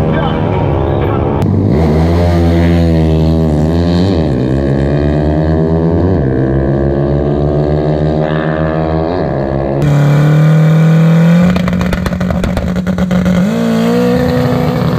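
A race car's engine accelerating hard down a drag strip, its pitch climbing and then dropping back at each of several gear changes. After a sudden change, a Volkswagen Gol drag car's engine is held at high revs with a rapid rattle, revving higher near the end.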